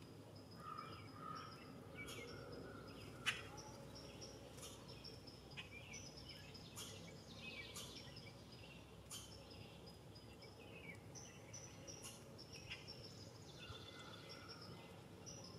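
Faint outdoor birdsong: scattered sharp, high chip notes, about one every second or two and the loudest a little over three seconds in, over a steady high, thin tone.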